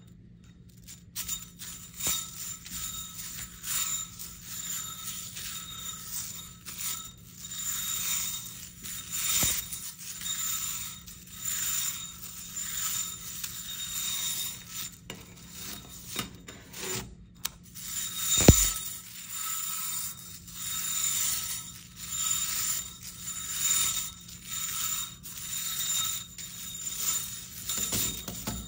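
Metal Slinky's steel coils clinking and rattling as they spill from one hand to the other, in repeated swells about once a second with a bright metallic ring. One sharp knock stands out about two-thirds of the way through.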